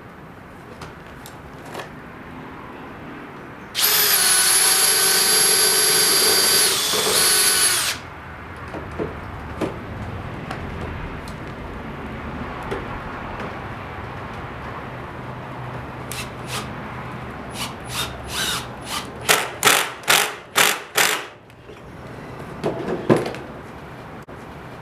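Power drill running: one steady high whine lasting about four seconds, its pitch dipping just before it stops. Later comes a quick run of about a dozen short trigger bursts, likely driving screws into wood.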